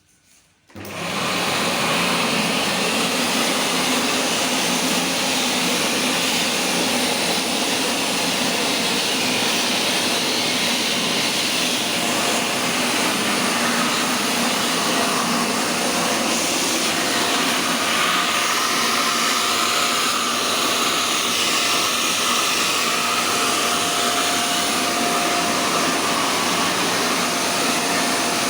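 A 1900-watt Philips PowerPro FC9352/01 bagless cyclonic vacuum cleaner switched on about a second in. Its motor spins up within about a second to a loud, steady rush of air and motor noise that holds unchanged, and it is a bit noisy.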